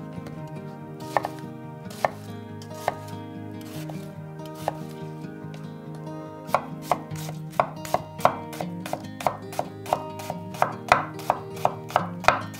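Chef's knife cutting an onion on a wooden cutting board. There are a few separate cuts at first, then from about halfway a quicker run of chops at two to three a second as the onion is diced.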